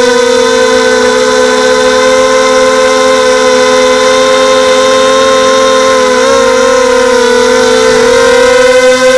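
Mini FPV quadcopter's brushless motors and propellers whining steadily at a fairly high pitch, the pitch wavering and dipping briefly between about six and eight seconds in.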